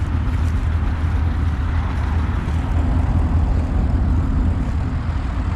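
Old tractor engine running steadily at low speed, a deep, even engine note.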